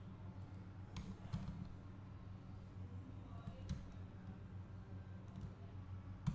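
Computer mouse and keyboard clicks, a handful of separate sharp clicks a second or more apart, the loudest near the end, over a steady low hum.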